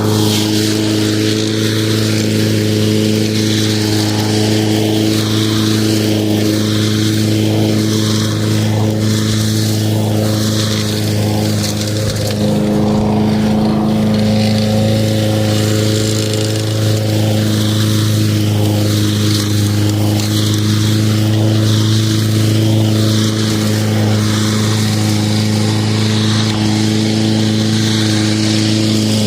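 Lawn mower engine running steadily at constant speed, its note shifting slightly about halfway through.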